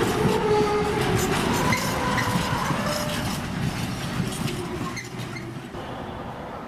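Container freight train's wagons rolling past, wheels clattering over the rails with thin squealing tones now and then. The sound fades down near the end.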